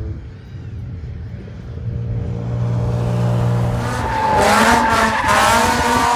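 Drift car's engine running low and steady, then revving as its tyres squeal in a drift from about four seconds in, the squeal wavering up and down in pitch.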